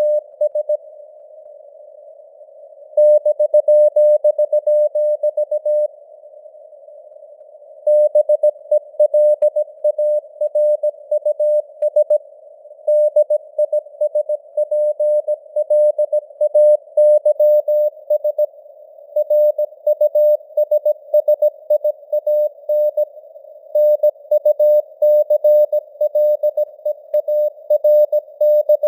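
Morse code (CW) sent at 17 words per minute: a single steady tone keyed on and off in quick dots and dashes, over a narrow band of simulated radio hiss. The keying stops for about two seconds twice, about a second in and again about six seconds in, leaving only the hiss.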